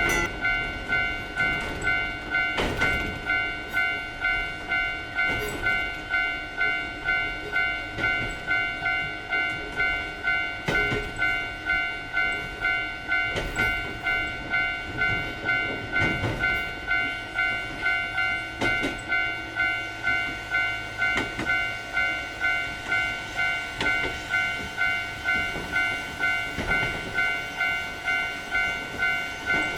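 Japanese railway level-crossing alarm ringing its repeating 'kan-kan' tone, about two strikes a second. A train runs past underneath it, with a wheel clack about every two and a half seconds.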